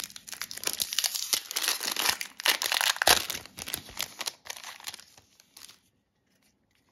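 Foil wrapper of an Upper Deck hockey card pack being torn open and crumpled by hand: a dense run of crinkling and tearing that stops near the end.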